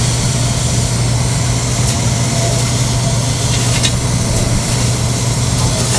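Hand-held hot-air plastic welder running steadily, a low hum with an even rush of hot air, as it heat-welds the seam of a PVC/TPO roofing membrane patch.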